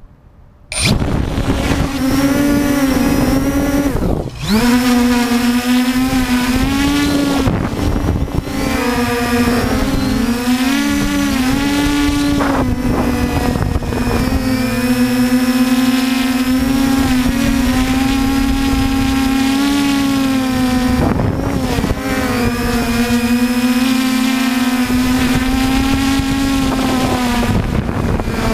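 Multirotor drone's electric motors and propellers spinning up about a second in, then a steady whine of several tones that waver up and down as it lifts off and climbs, with two brief drops in throttle, one about four seconds in and one later.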